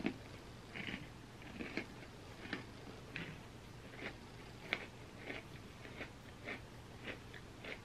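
Close-up chewing of a mouthful of cookie and ice cream: soft wet mouth smacks, about one or two a second, over a faint steady low hum.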